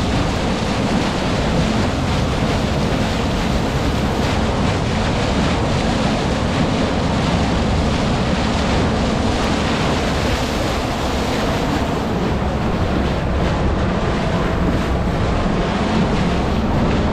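Bow wave of a moving trawler rushing and splashing along the hull, with wind buffeting the microphone and the boat's engine running low underneath. It is a steady, unbroken wash of noise.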